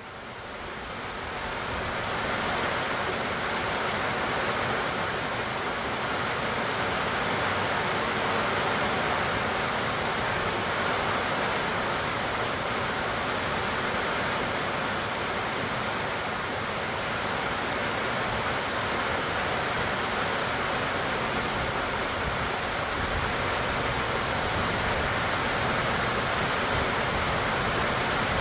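Steady summer rain falling on the leaves of pecan trees and on grass. It fades in over the first couple of seconds, then holds as an even hiss.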